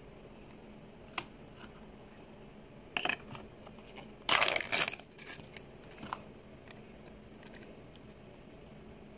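Small white paper mystery wrapper from a Mini Brands capsule being torn open and crinkled by hand: a few short rustles, the loudest about four and a half seconds in.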